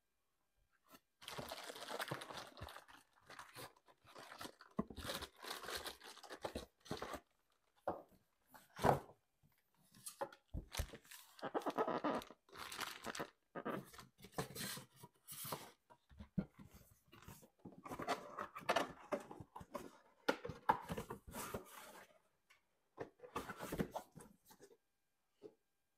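Plastic bag around a microphone crinkling and rustling in gloved hands, with a cardboard box being handled and scraped. The sounds come in irregular bursts with short pauses, and there is a sharp knock about nine seconds in.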